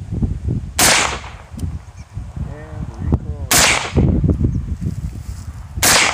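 Three rifle shots, roughly two and a half seconds apart, each a sharp crack with a short echo after it.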